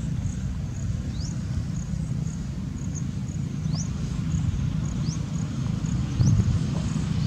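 Outdoor ambience: a steady low rumble, with short high chirps rising in pitch that repeat about once a second.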